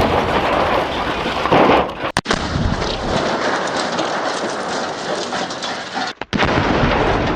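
Aftermath of a grenade blast: a loud, steady rush of crackling noise over a low rumble, cut off briefly about two seconds in and again about six seconds in.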